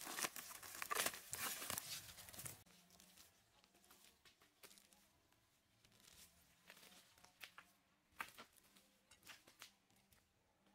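Weeds being pulled up by hand from dry, mulch-covered soil: rustling and tearing of roots and dry leaves, loud for the first two or three seconds, then only faint scattered scrapes and rustles.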